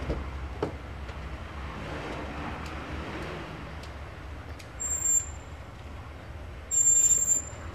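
A steady low outdoor rumble with a couple of clicks near the start as a car door is opened. Then come two short, shrill, high-pitched rings, about five and seven seconds in.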